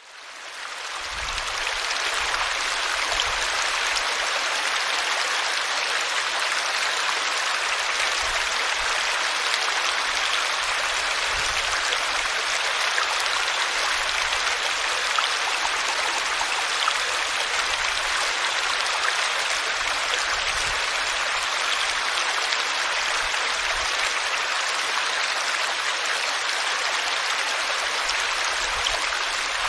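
Water flowing and splashing in a small stream, a steady rushing babble that fades in over the first two seconds, with occasional faint low thumps of water.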